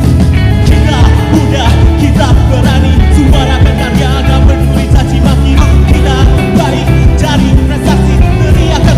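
A song: a singing voice over a band backing with steady drums and bass.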